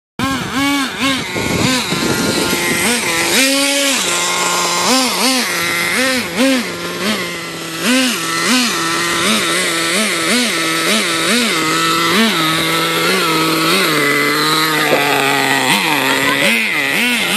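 RC monster truck's motor revving in quick throttle pulses: its whine rises and falls about twice a second as the truck is driven over dirt and tree roots.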